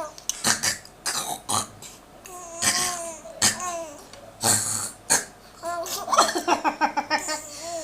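A woman making short, harsh, burp-like throat noises, answered by a three-month-old baby's high-pitched laughter in runs, about two seconds in and again from about six seconds.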